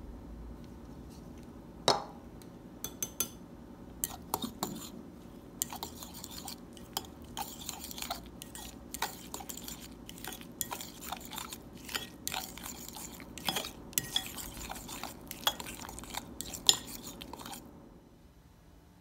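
A utensil stirring a thick, crumbly mixture in a ceramic bowl, with quick scraping and clinking against the bowl. There is one sharp knock about two seconds in, and the stirring stops suddenly near the end.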